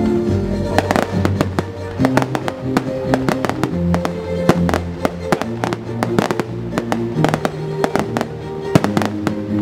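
Fireworks going off in a rapid, irregular run of sharp bangs and crackles, starting about a second in, over steady instrumental music.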